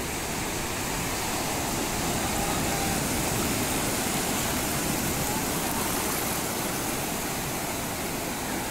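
Surf breaking on a sandy beach and washing up the shore: a steady rushing noise that swells a little in the middle.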